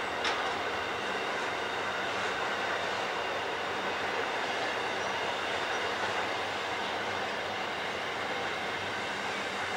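Intermodal freight train's container wagons rolling past on a curve: a steady rumble of steel wheels on rail with faint high wheel squeal running through it, and a single click about a quarter of a second in.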